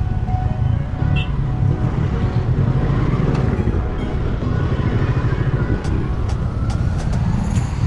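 Motorcycle running along the road, a steady low engine rumble mixed with road and wind noise, heard from on the moving bike.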